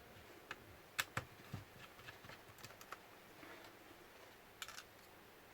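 Scattered light clicks and taps of small screws and tools being handled on a laptop's plastic casing during disassembly, the sharpest pair about a second in and a quick little cluster near the end.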